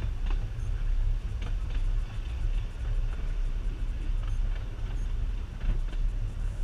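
Low, steady rumble of a small narrow-gauge lake railway train running, with a few faint clicks from the track.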